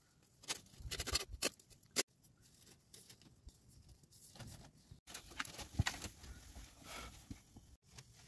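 Cloth curtain rustling, with light knocks and scrapes of a wooden pole being set against it, in short irregular bursts.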